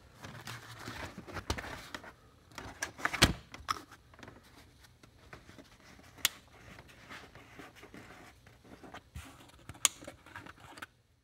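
Plastic engine cover being handled and set back down onto the engine: scattered knocks and rubs with a few sharp clicks, the loudest knock about three seconds in.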